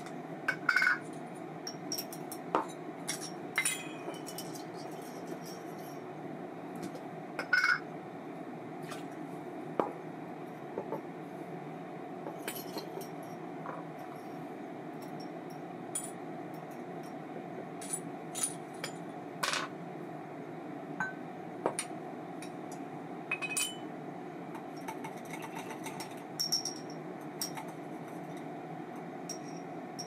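Small metal parts and tools of an Abu Ambassadeur 2500C baitcasting reel being handled on a workbench: scattered, irregular sharp clinks and clicks over a steady low hum.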